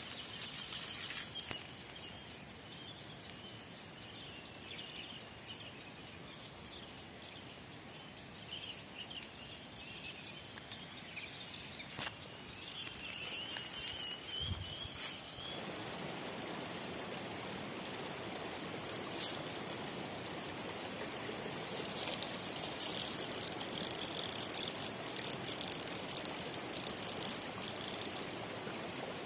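Birds chirping faintly over an outdoor background; about halfway a steady rush of water from a small stream comes in with a high, even insect drone, and grass rustles near the end.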